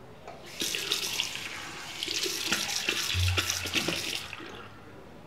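Bathroom sink tap running into the basin, the water splashing irregularly over hands held in the stream. It starts about half a second in and tails off near the end.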